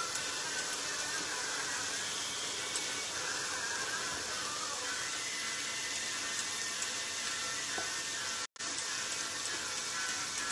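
Onions frying in olive oil in a pot: a steady sizzle, with a brief break in the sound about eight and a half seconds in.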